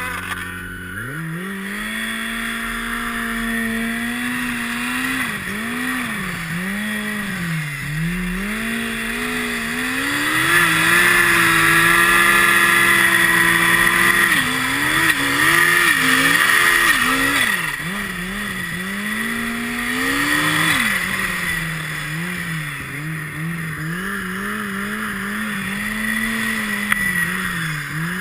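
Turbocharged snowmobile engine revving up about a second in, then rising and falling in pitch as the throttle opens and closes. It runs highest and loudest from about ten to seventeen seconds in, with a high whine over it, then settles back to a lower, wavering pitch.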